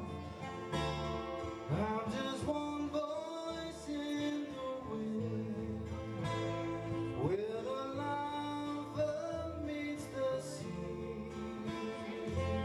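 A man singing while strumming a twelve-string acoustic guitar, the voice sliding between held notes over steady chords.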